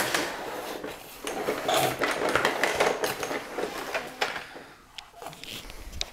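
Plastic push-along baby walker rattling and clattering as it is pushed over a wooden floor, with a few sharp knocks.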